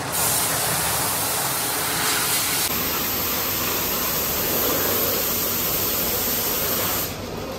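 A loud, steady hiss of rushing noise that starts abruptly and cuts off suddenly about seven seconds in, leaving a quieter low hum.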